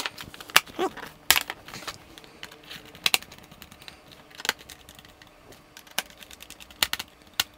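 Irregular sharp clicks and taps as the bottom access cover of a Toshiba Satellite P845T laptop is pressed into place and a small screwdriver turns its screws.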